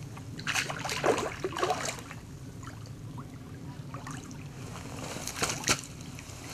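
A hooked carp splashing and sloshing at the surface close to the bank while being played, in irregular bursts from about half a second to two seconds in and again near the end.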